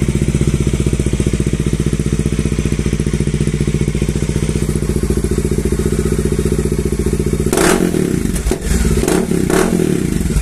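Bajaj Dominar 400's single-cylinder engine idling steadily through an aftermarket Paolucci exhaust, with an even, rapid pulsing beat. A few sharp thumps come over it in the last few seconds.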